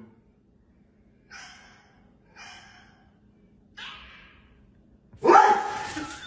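Cat and dog face-off: three short breathy huffs about a second apart, then a loud, sudden bark-like cry about five seconds in.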